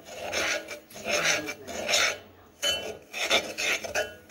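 A metal fork scraping and stirring dry, grainy sugar around the bottom of a pot in quick repeated strokes, a gritty rasp about one to two times a second. The sugar has not yet melted.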